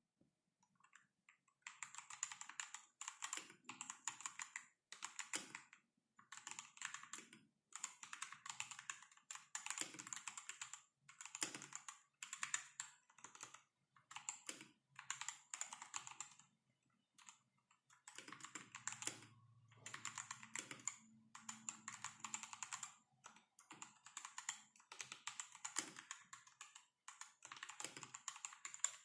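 Typing on a Rexus Daxa M71 Classic mechanical keyboard with stock Gazzew Boba U4T tactile switches, XDA-profile PBT keycaps, and case and plate foam. The keystrokes come in quick runs of about a second each, with short pauses between, starting about a second and a half in.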